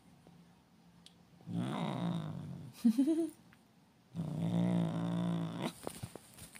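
Ginger tabby cat growling in two long, low drawn-out growls, with a short, louder rising cry between them: an annoyed, warning growl. A few soft knocks near the end.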